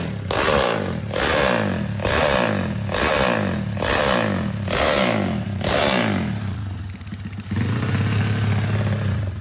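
Drag-racing motorcycle engine being blipped on the throttle, about seven quick revs roughly a second apart. Near the end it settles into a steady, even run.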